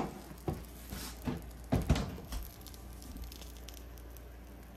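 Metal muffin tin clattering as it is lifted out of the oven and set down on a glass-top stove: a few sharp knocks and scrapes in the first two seconds, the loudest about two seconds in.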